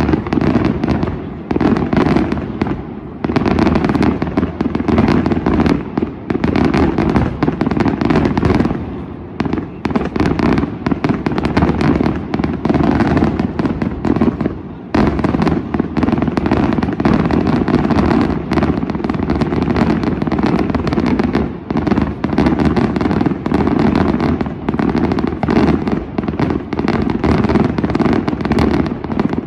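Daylight fireworks display: a dense, continuous barrage of rapid bangs and crackling firecrackers. The barrage eases briefly about 3, 9, 15 and 21 seconds in.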